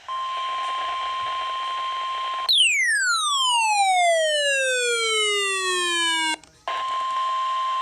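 Weather radio warning alarm tone: a single steady tone just above 1 kHz over radio static. About two and a half seconds in it gives way to a louder electronic tone with many overtones that glides steadily downward for about four seconds and stops abruptly. The steady alarm tone with static then resumes near the end.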